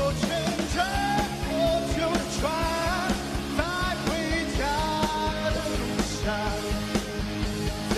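Live rock song: a male voice singing in Mandarin over electric guitars and a steady beat.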